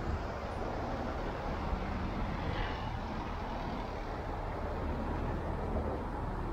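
Steady street traffic noise, with vehicle engines running close by and no single event standing out.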